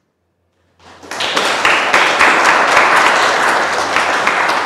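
Audience applauding, starting about a second in and holding steady through the rest.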